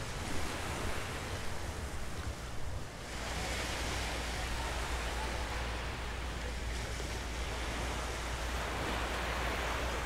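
Gentle surf washing onto a sandy beach, with wind rumbling on the microphone; the sound turns steadier about three seconds in.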